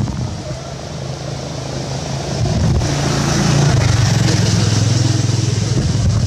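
A motor vehicle's engine running, a low steady drone that grows louder from about two and a half seconds in and stays up.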